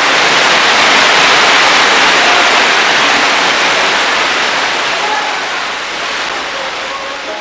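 Heavy rain, a loud steady rush of noise that swells over the first second or two and then slowly eases off.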